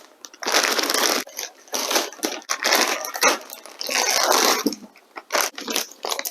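Plastic packaging crinkling and rustling in about four bursts as bagged power-supply cables and accessories are unpacked by hand, followed by a few light clicks and knocks near the end.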